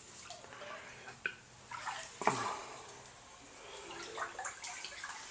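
Floodwater splashing and sloshing in irregular bursts, with one sharper, louder splash about two seconds in.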